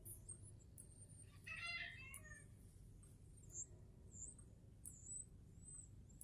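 A chicken gives one short, wavering call about a second and a half in, over faint high chirping from birds.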